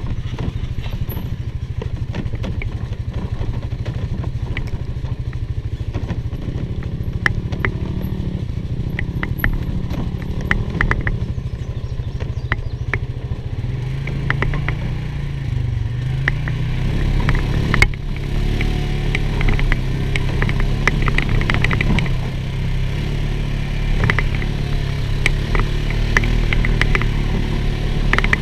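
2019 Polaris Sportsman 450 ATV's single-cylinder engine running under load while climbing a rocky dirt trail, with frequent clicks and clatter from stones and the machine over the rough ground. The engine pitch rises and falls around the middle, and it runs a little louder in the second half.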